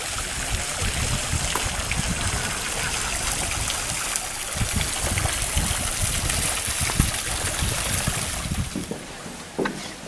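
Steady rush of running water, with an irregular low rumble underneath and one sharp click about seven seconds in.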